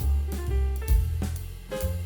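Background music with a drum kit beat, bass and guitar-like notes.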